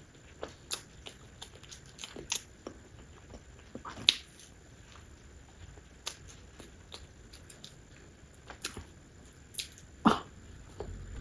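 Close-miked chewing of soft cake: wet mouth clicks and lip smacks scattered through, with two sharper clicks about four seconds in and near the end.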